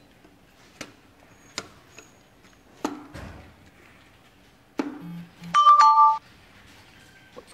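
Electric single-wheel scooter being handled: several sharp plastic clicks of its handle and controls, then its electronic beeper sounds a loud two-tone chime, a higher note stepping down to a lower one, about six seconds in.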